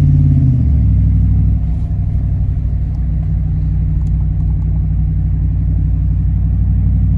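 A pickup truck's engine and road noise heard from inside the cab while driving, a steady low drone. The engine note drops about half a second in, then holds steady.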